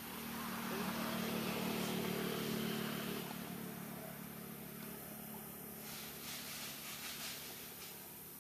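A motor vehicle's engine hums steadily, getting louder over the first few seconds and then fading away as it passes. A few soft rustles come near the end.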